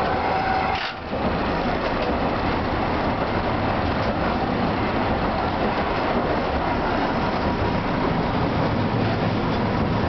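Tosa Electric Railway streetcar running along street track, heard from inside the car: a steady rumble of wheels on rail and traction motor. The sound drops out briefly about a second in.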